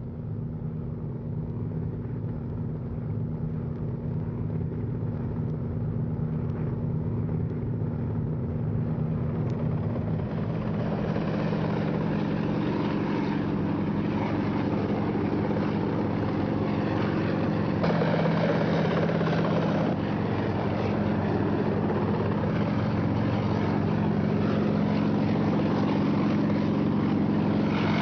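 Sikorsky H-34 helicopter's piston engine and rotor running in a steady drone as it comes in to hover, growing louder, most of all about ten seconds in.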